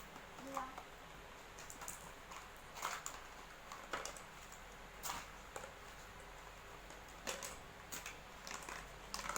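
Scattered light clicks and taps, about one a second, from things being handled, typical of boxes and packaging being opened.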